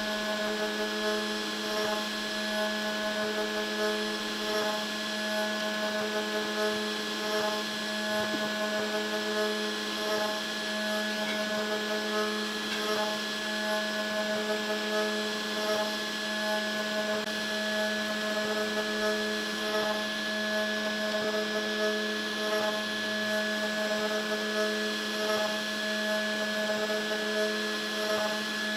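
Wizmaker Artisan 01 desktop CNC router engraving pine with a 30-degree V-bit. The spindle runs steadily under a constant hum, with a whine of several tones that pulses on and off about once a second as the machine works along the cut.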